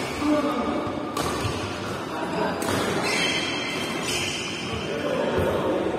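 Badminton rally in an echoing sports hall: sharp cracks of rackets striking the shuttlecock, about a second or so apart in the first half, with players' voices in the background.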